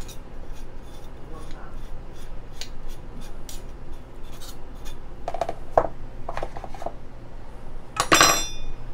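Metal spoon tapping and scraping inside a small wire-mesh sieve as cocoa powder is sifted through it, a quick run of light ticks. A few clinks follow, and a louder metallic clink rings briefly near the end.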